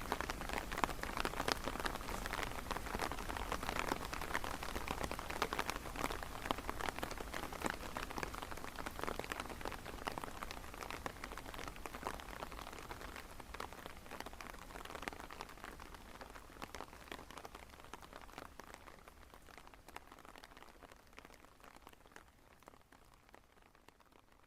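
Rain falling, a dense spread of individual drops, slowly fading out.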